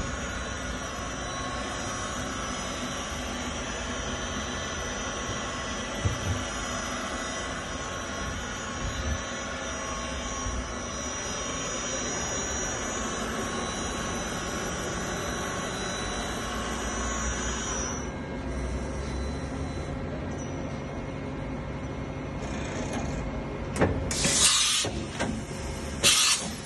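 Matsuura MC-500V2 CNC vertical machining center running with a steady whine and several high tones, which drop away about two-thirds of the way in. Near the end come two loud bursts of compressed-air hiss.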